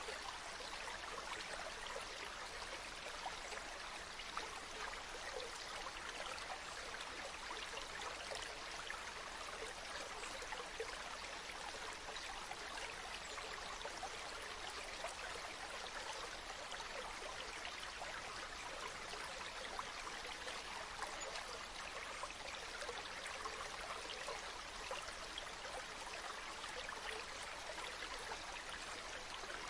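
Water flowing in a small stream, a steady babbling trickle with many small splashes and gurgles.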